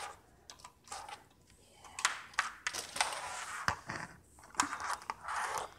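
Handling of a new computer mouse and its packaging: a scattering of sharp clicks and taps among bouts of rustling.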